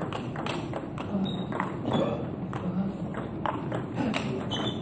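Table tennis rally: the ball clicking off the bats and the table about twice a second.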